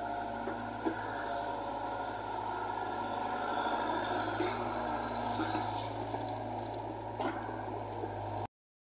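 Caterpillar tracked excavator's diesel engine running steadily with a low hum while it digs and loads soil, with a few faint knocks. The sound cuts off suddenly near the end.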